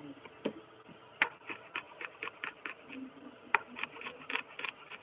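Kitchen knife chopping vegetables on a cutting board: quick knocks, about four a second, in two runs with a short pause between them.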